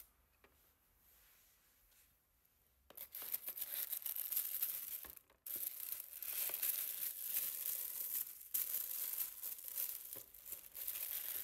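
White tissue paper rustling and crinkling as it is folded back and lifted out of a gift box, starting about three seconds in after a near-silent pause.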